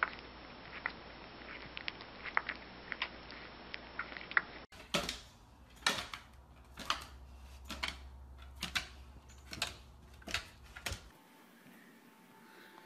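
A newborn puppy suckling at a feeding bottle, making small quick clicks and smacks. Then, about five seconds in, a large dog's claws and paws click and knock on wooden stair treads as it comes down, about one knock every half second.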